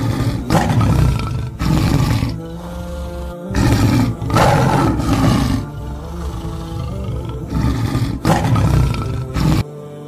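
Big-cat roars, loud rough calls coming in about three pairs, over background music of steady held tones.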